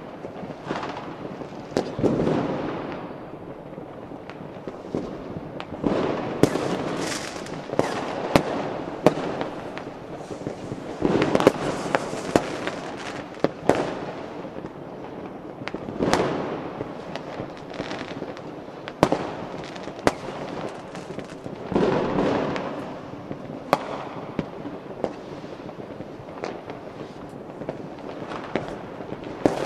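Fireworks going off: sharp bangs every second or two, with a spell of crackling every few seconds as shells burst.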